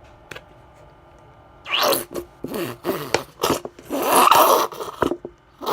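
A nearly empty plastic shampoo bottle being squeezed: a run of irregular sputtering squirts of air and shampoo, the loudest and longest about four seconds in.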